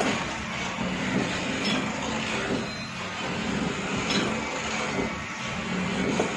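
Automatic bag-closing sewing machine and its conveyor running, a steady mechanical hum of the motors.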